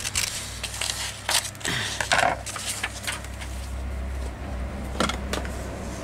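Paper and craft materials being handled: scattered rustles, scrapes and light clicks over a steady low rumble.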